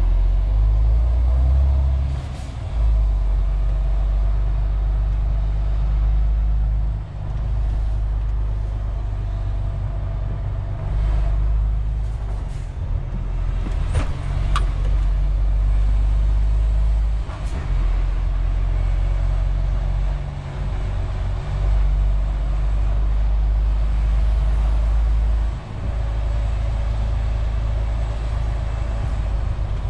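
Heavy truck's diesel engine heard from inside the cab of a loaded MAN TGX 470 (12.4-litre straight-six): a deep, low drone that drops and picks up again several times while driving, with a sharp click about halfway through.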